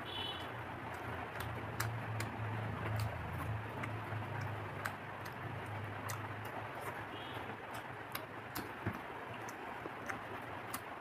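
Close-miked eating: chewing with many scattered small mouth clicks and crunches.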